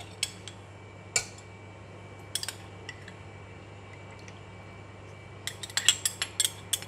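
A metal spoon clinks against a small glass bowl and a stainless steel pot while oyster sauce is spooned into the water. A few scattered clinks come first, then a quick run of taps near the end as the spoon scrapes out the bowl.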